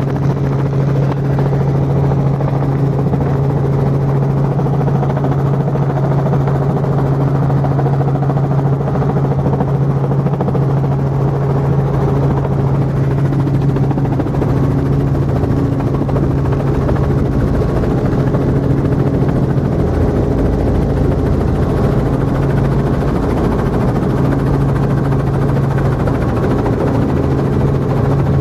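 Robinson R44 helicopter heard from inside the cabin, its six-cylinder Lycoming piston engine and rotor running with a steady, loud drone over a strong low hum, as it comes in to land.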